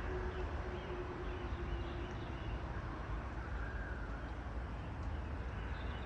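Steady outdoor background rumble and hiss, with a faint hum that fades out about two seconds in and a few faint high bird chirps.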